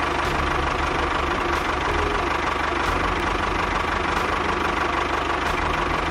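Tractor engine idling steadily, just after being started.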